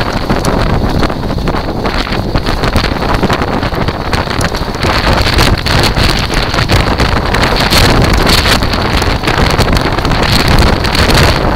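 Kite buggy rolling fast over shingle: heavy wind buffeting the microphone over a constant crunching rattle of the wheels and frame on the stones.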